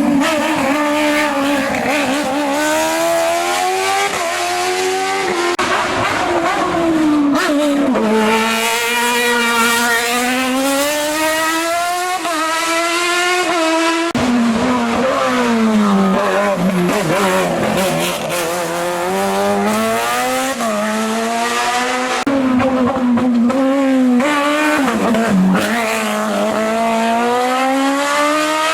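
Race car engine at high revs, its pitch climbing in a series of sweeps and dropping sharply between them as the driver shifts gears, lifts and gets back on the throttle.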